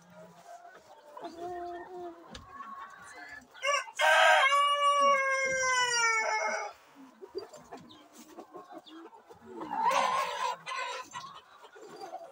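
A rooster crows once about four seconds in, a long loud call of nearly three seconds with its pitch falling slightly at the end, among scattered clucking from a flock of chickens. A brief harsh burst of sound comes about ten seconds in.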